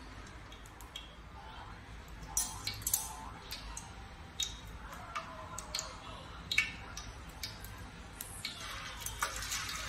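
Light clicks and taps of a metal utensil against a steel frying pan, then hot oil starting to sizzle near the end as a square of raw fish cake goes in.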